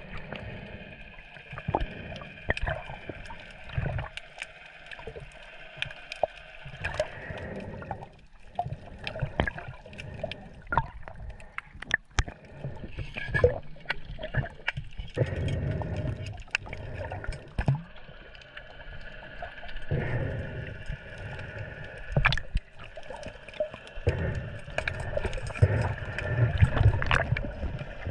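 Sea water sloshing and splashing in uneven swells, with many scattered small clicks and knocks.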